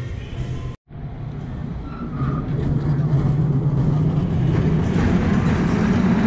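A San Francisco California Street line cable car passing on its rails, with a steady low hum and rolling noise that grows louder about two seconds in. It starts after a sudden short break less than a second in.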